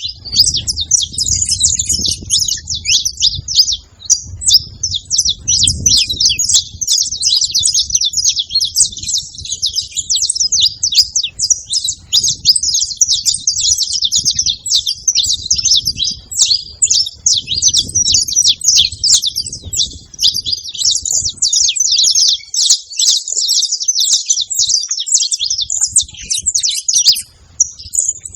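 Saffron finch singing and calling without pause: a dense run of rapid high chirps and trills.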